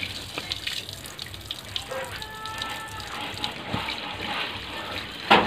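Water running from an outdoor tap onto a cement floor while clothes are rinsed under it, with small splashes and drips throughout and one loud splash about five seconds in.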